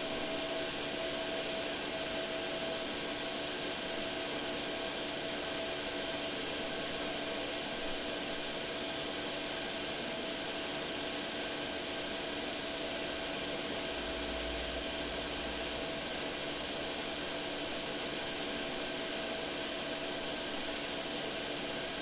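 12 V diesel air heater running, its fans giving a steady whir with a constant hum and whine over it, on a heater the owner suspects is faulty.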